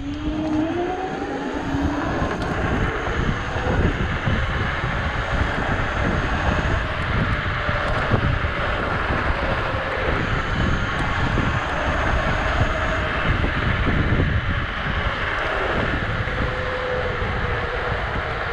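Dualtron Thunder electric scooter at riding speed: hub motor whine rising in pitch as it accelerates over the first couple of seconds, then running steadier. Heavy wind rumble on the microphone and tyre noise on asphalt are mixed in throughout.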